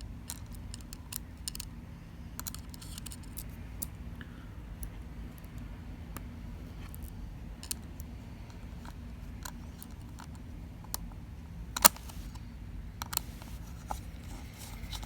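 Small metallic clicks and light scrapes from a screwdriver and small parts as the SSD is screwed down inside an open MacBook Air, scattered irregularly, with one sharper click near the end. A low steady hum runs underneath.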